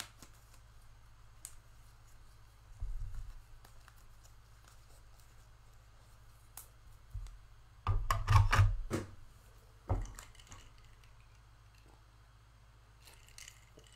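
Trading cards and plastic pack wrapping being handled on a table: a dull bump about three seconds in, then a loud cluster of sharp crinkles and clicks a little past the middle and a single click about ten seconds in.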